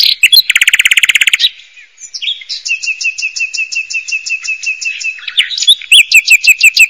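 Birds calling: a fast, loud trill about a second long, then a long run of evenly repeated high chirps, which turn louder near the end.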